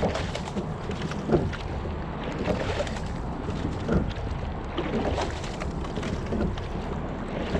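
Single scull under way: water washing along the hull and wind on the microphone, with short knocks and splashes from the oars recurring about every second and a quarter in time with the rowing.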